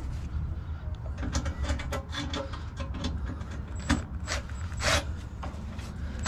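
Scattered small metal clicks, taps and brief scrapes of hand tools working on a table saw's screws and housing as it is taken apart, over a steady low hum.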